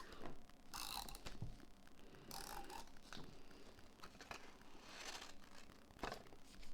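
Faint rasping and rustling as tape is run onto cardstock and the paper is handled, in a few short strokes about a second in, at two and a half seconds, and around five and six seconds.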